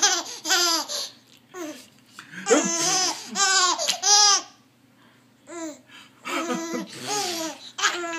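Baby laughing hard in repeated high-pitched bouts of giggles, each bout a string of quick breathy peals. The laughter pauses for about a second a little past halfway, then starts up again.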